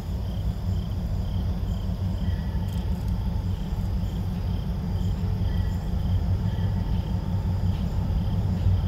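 Insects chirping in an even rhythm, about two high chirps a second, over a low steady rumble that grows slightly louder.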